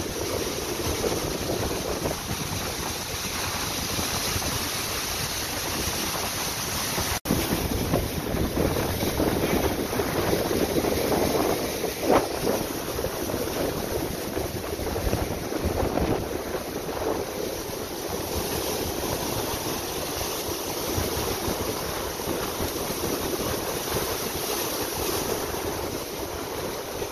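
Ocean surf breaking and washing up over rocks, with wind buffeting the microphone. The sound cuts out for an instant about seven seconds in.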